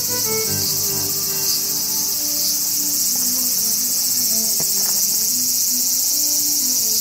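A dense, steady, high-pitched chorus of insects in the evening garden. Soft background music with slow, low held notes runs beneath it.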